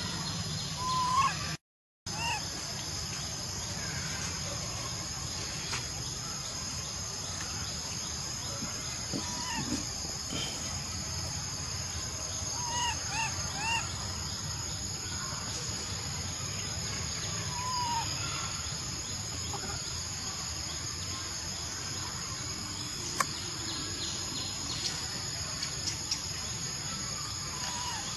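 Steady high-pitched insect drone with a few short chirps scattered through it and a single sharp click about two-thirds of the way in. The sound cuts out completely for a moment near the start.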